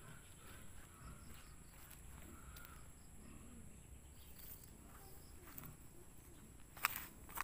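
Quiet rural ambience: a steady high insect buzz with faint, repeated bird chirps. Near the end come a few sharp clicks.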